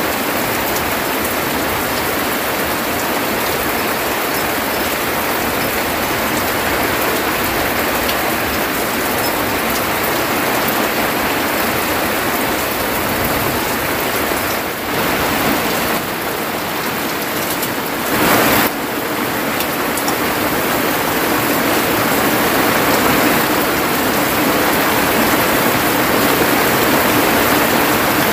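Heavy rain pouring down steadily, with a brief louder burst of noise about two-thirds of the way through.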